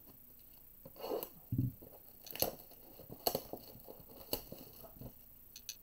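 Clear plastic shrink wrap being torn and peeled off a cardboard blaster box of baseball cards: irregular crinkling and crackling, with three louder sharp crackles about a second apart in the middle.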